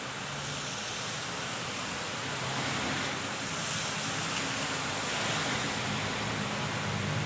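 Waterfall rushing: a steady, even roar of falling water with a faint low hum beneath it.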